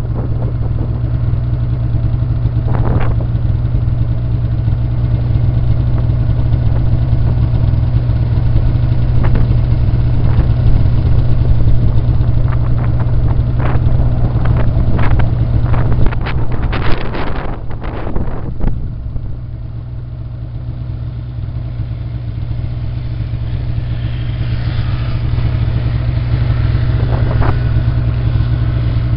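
Snowmobile engine running steadily. A cluster of sharp clacks and knocks comes about halfway through, and the engine is a little quieter for a few seconds after.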